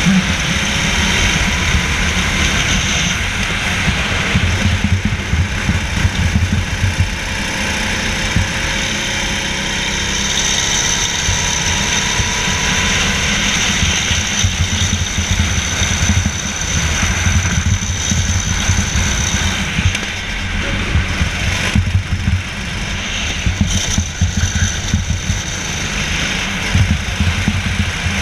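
Go-kart engine running at race pace, heard close up from on board, its pitch rising and falling with speed through the corners and straights.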